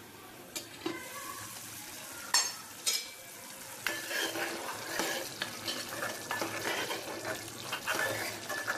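A few sharp metal clinks in the first three seconds as the lid comes off a metal pot, then a spoon stirring and scraping through a thick curry masala that sizzles as it fries in oil.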